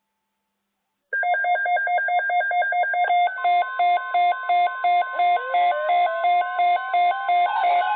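Silence, then about a second in a loud, rapid run of electronic beeps at several pitches, about six a second, in a repeating pattern. A rising glide enters partway through, and more tones pile in near the end.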